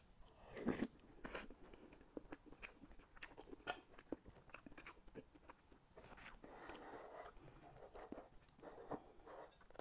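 Faint close-miked eating sounds of a person chewing soft cream cake with chewy tapioca pearls: wet mouth smacks and small clicks, with a louder cluster of smacks about a second in as a spoonful goes into the mouth.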